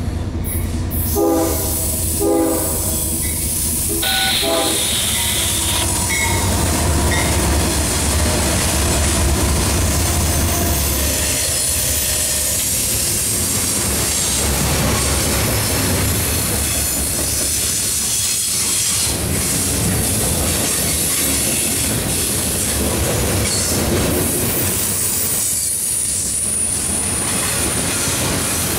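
A CSX diesel freight train passing close by. The lead locomotives' horn sounds in short blasts over the diesel engine rumble in the first few seconds. After that a long string of freight cars rolls past with steady wheel-on-rail clatter.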